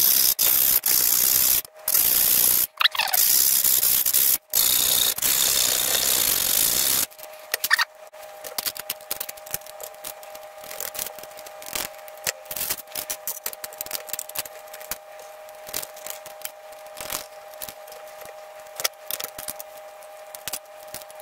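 Hand file rasping on a brass sheet frame, a loud steady hiss broken by a few short gaps, enlarging a slot. About seven seconds in it stops abruptly, giving way to small clicks and taps of brass parts and a miniature engine being handled, over a faint steady hum.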